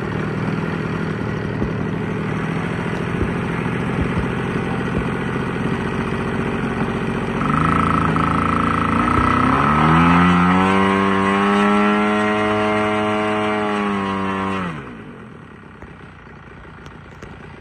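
Engine of a large-scale radio-controlled Mitsubishi J2M Raiden model aircraft. It starts suddenly and runs roughly at low speed. About ten seconds in it revs up to a higher, steady pitch, then drops away sharply near fifteen seconds.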